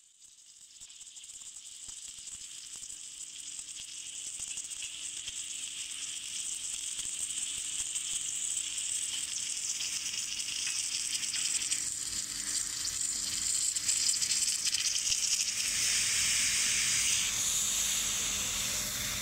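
Submerged arc welding on steel plate: a steady sizzling hiss from the arc burning under its blanket of granular flux, growing gradually louder over the first half and then holding steady.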